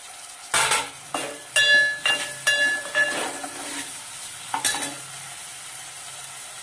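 A steel ladle stirring chopped tomato and onions in a metal pan of hot oil: a loud scrape, then a run of sharp ringing clinks of ladle on pan, and one more clank about a second and a half later, over a faint steady sizzle of frying.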